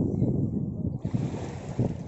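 Wind buffeting the microphone by the sea: a gusty low rumble that eases off through the second half.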